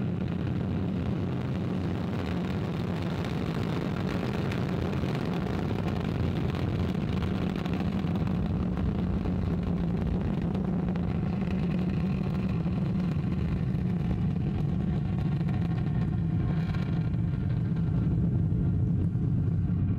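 Ariane 5 ECA rocket climbing away just after liftoff: the steady, deep rumble of its two solid rocket boosters and Vulcain main engine, growing slightly louder near the end.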